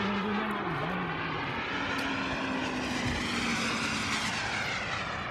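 Single-engine radio-controlled model jet flying overhead, its engine giving a steady rushing noise as it passes.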